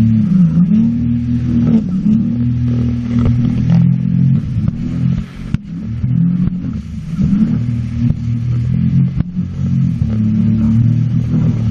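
Sea-Doo jet ski engine running under way, its pitch dipping and rising several times as the throttle is eased and opened, with a couple of sharp knocks.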